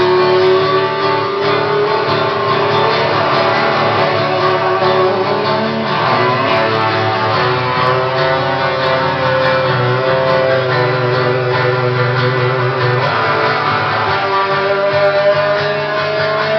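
Live rock band playing an instrumental passage with strummed acoustic guitar under long held lead notes that slide slowly upward, three times over.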